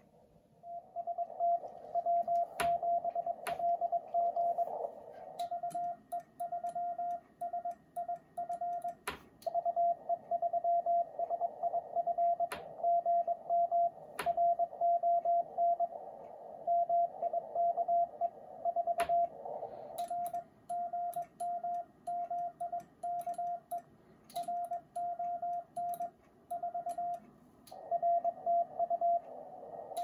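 Medium-speed Morse code from a Yaesu FTDX-10 HF transceiver: a single-pitch tone keyed on and off in dots and dashes over a narrow band of receiver hiss, as contest contacts are exchanged. A few sharp clicks cut through now and then.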